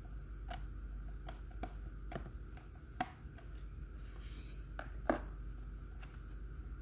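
Light plastic clicks and taps from the back of a plastic toy drawing board being handled and poked with a thin metal pin, with two sharper clicks about three and five seconds in. A steady low hum runs underneath.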